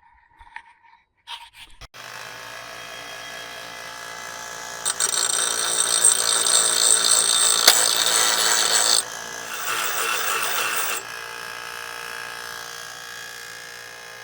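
Electric grinder switched on about two seconds in, its motor running with a steady whine, then grinding steel in two loud, hissing passes, grinding down a weld bead to flatten it. The motor keeps running between and after the passes, slowly getting quieter.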